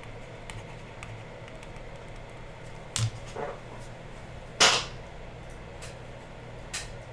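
A sharp click about three seconds in, then a short swishing noise a second and a half later, the loudest sound, and a fainter click near the end, over a steady low hum.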